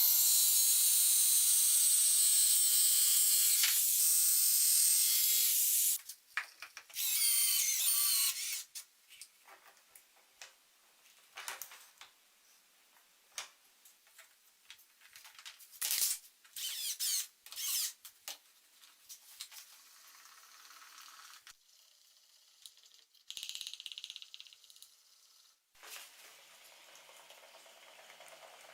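An electric power tool's motor runs steadily for about six seconds and then stops, followed by a short wavering burst of the tool and a string of knocks, clicks and brief tool noises while work goes on.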